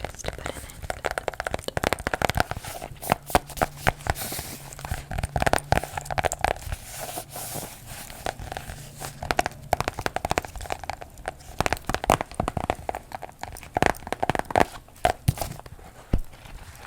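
Hands tapping and rubbing on a journal: quick, irregular taps and scratchy strokes with some paper crinkling.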